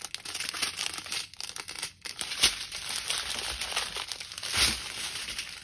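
Strips of small plastic zip bags of resin diamond-painting drills crinkling and rustling as they are handled and laid out, with louder crinkles about halfway through and near the end.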